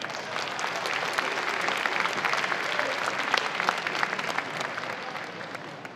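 Spectators applauding, a dense patter of many hands clapping that swells in the first second and eases off near the end.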